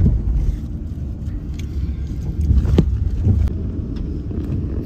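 Steady low rumble of a car's engine and tyres on the road, heard from inside the cabin, with a single short click a little past the middle.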